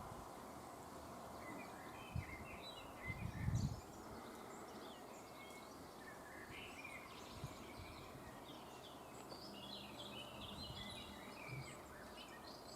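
Birds chirping faintly and irregularly over steady outdoor background noise, with brief low rumbles about two seconds in and again a second later.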